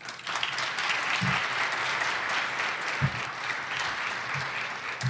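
Audience applauding, tapering off near the end, with a few dull low thumps.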